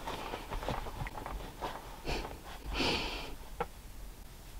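A dog sniffing and snorting in a few short, soft puffs, the clearest about three seconds in, with a couple of small clicks.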